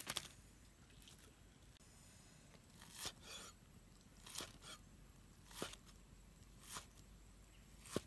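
A meat cleaver chops through cooked pork belly onto a wooden chopping board, with a short sharp knock for each chop. There is one knock right at the start, then a steady chop about every second and a quarter from about three seconds in.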